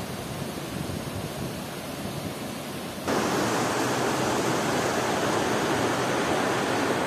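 Steady rushing of a shallow river running over rocks, jumping louder about three seconds in and holding steady after.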